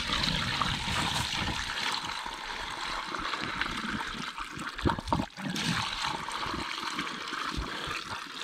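Water poured slowly from a bucket into a pipe, a steady rush of water, with a couple of knocks about five seconds in.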